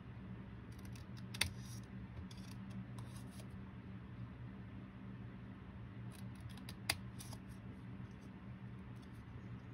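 Scissors snipping short cuts into a folded paper index card: scattered runs of crisp snips, with two sharp blade clicks, about a second and a half in and again near seven seconds in.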